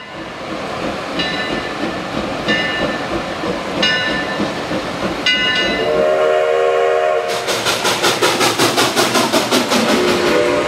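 Steam locomotive sounds: over a steady hiss come four short ringing strikes about a second and a half apart, then the steam whistle sounds a low chord for about a second, then fast, even exhaust chuffs of a locomotive under way begin and run on with the whistle starting again at the very end.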